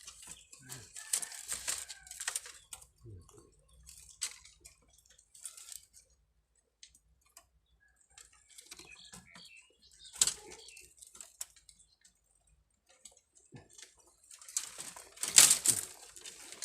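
Irregular rustling and crackling, like leaves and twigs being handled, broken by quiet gaps. There is a louder burst about ten seconds in and a louder cluster near the end.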